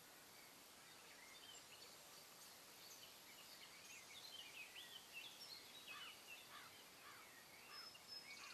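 Faint birdsong: scattered short chirps and trills over quiet outdoor air, busier in the second half.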